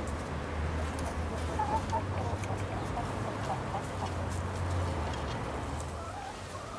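Hens clucking softly over a steady low hum.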